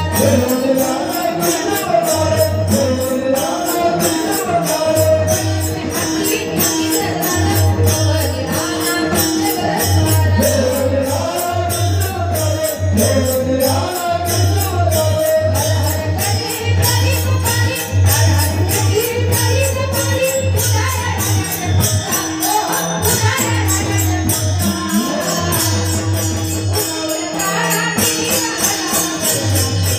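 Devotional music played live through the PA speakers: a voice singing a wavering melody over a repeating bass note and steady, rhythmic jingling percussion.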